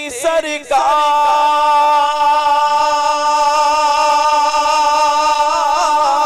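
Male naat reciter singing unaccompanied into a microphone, drawing out one long steady note after a brief rise at the start, with a wavering vibrato near the end.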